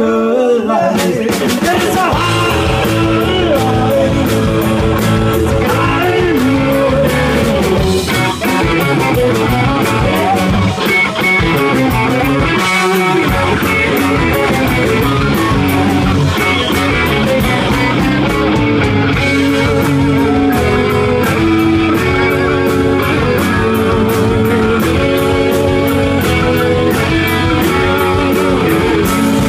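Live rock band playing loud and steady: several electric guitars through amplifiers over a drum kit.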